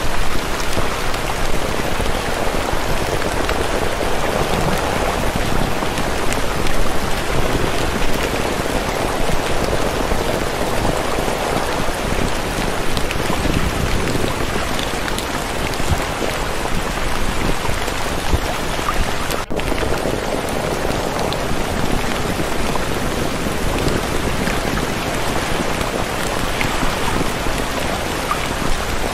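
Steady, even rain noise with no change in level, broken only by a split-second dropout about two-thirds of the way through.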